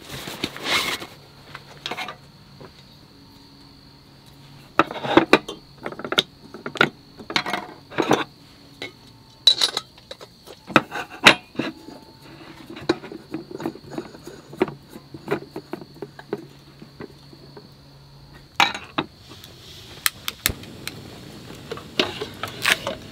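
Clinks and knocks of dishes, cookware and utensils being handled and set down, in many separate light strikes. A faint steady high-pitched hum holds under them for most of it and stops near the end.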